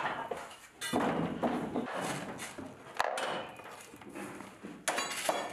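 Wooden formwork boards being handled during formwork stripping: irregular knocks and thuds of wood, with sharp knocks at the start, about one second in, about three seconds in and near the end.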